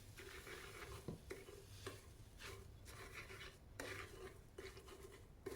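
Faint, irregular rubbing and scraping strokes from scrubbing an iron's soleplate with a baking-soda paste, over a steady low hum.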